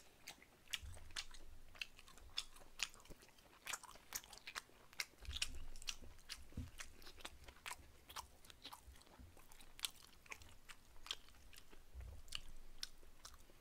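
Close-miked chewing and mouth smacking of a person eating stir-fried sundae and glass noodles, with many irregular sharp wet clicks and a few soft low thuds.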